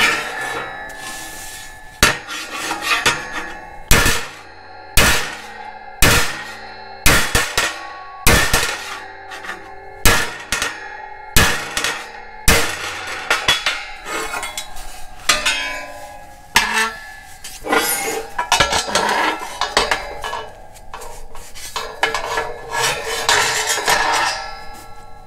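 Ball-peen hammer striking a thick steel tractor grille panel on a steel work table to work out dents: about ten hard, ringing blows roughly a second apart, then a run of lighter, quicker knocks and metal clatter.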